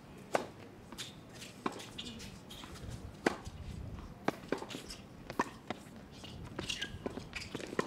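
Tennis rally on an outdoor hard court: a sharp pop of the ball off the rackets and its bounce on the court, about once a second, the players' footsteps faint between the shots.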